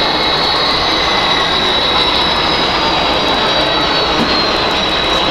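HO scale model freight train rolling past close by, a steady running noise with a high whine that drifts slightly lower in pitch.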